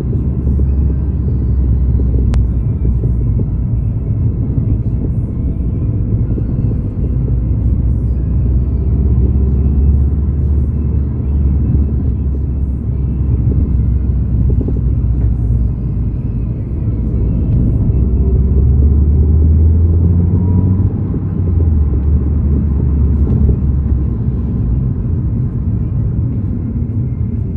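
A motor vehicle running with a loud, steady low rumble that swells slightly and eases a few times.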